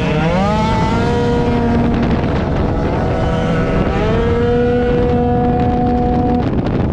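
Piaggio Zip racing scooter engine revving up to a high, steady pitch and holding it. It eases off about two seconds in, climbs again about four seconds in, and holds until shortly before the end.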